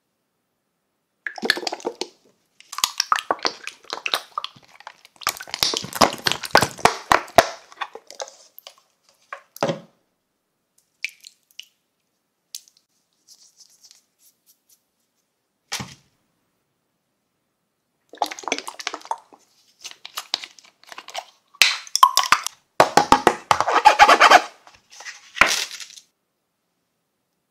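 Slime being squeezed and kneaded by hand: bursts of sticky, wet squelching with many small pops, in two spells with a quiet stretch of several seconds between them.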